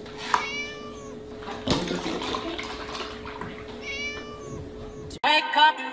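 Kitten meowing twice, high-pitched, while milk is poured from a carton into a plastic tub, with a sharp knock about one and a half seconds in and a steady hum underneath.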